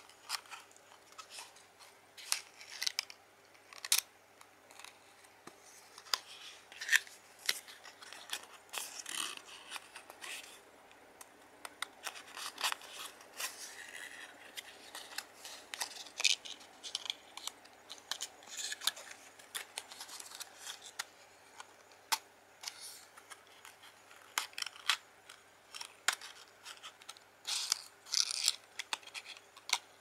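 Cardboard playing-card box handled close to the microphone: irregular crisp clicks, taps and rustles of fingers and nails on the card case.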